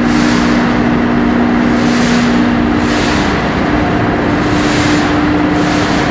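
Loud, steady machinery noise in a tanker's pump room: a dense mechanical din with a low steady hum, part of which drops out about halfway, and a hiss that swells and fades several times.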